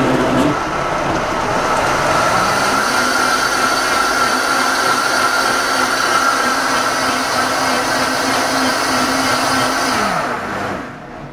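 Vitamix Ascent A3500 blender running loudly with a steady motor whine as it purees a thick green smoothie of spinach, fruit and water. About ten seconds in it is switched off and the motor winds down.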